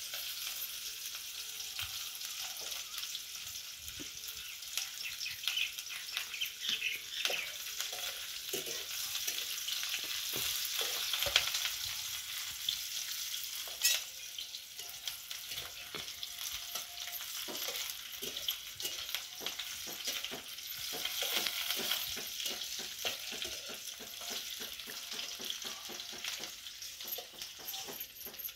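Chopped onions frying in oil in a steel kadhai, sizzling steadily. A spoon scrapes and taps against the pan again and again as they are stirred.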